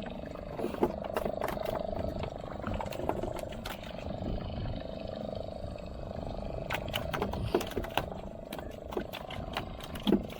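Fishing boat's engine running with a steady drone, under irregular sharp knocks and clatter on deck.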